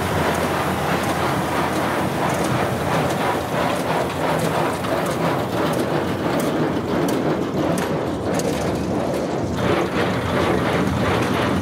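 Tractor engine running steadily with a Welger AP630 conventional small-bale baler working behind it: a low drone under a continuous rattle and many irregular sharp clicks and knocks.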